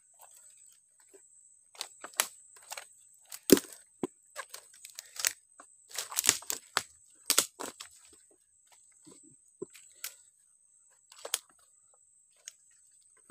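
Dry twigs and leaf litter snapping and crunching in irregular bursts. The loudest snap comes about three and a half seconds in, with a thicker run of crackling a little later.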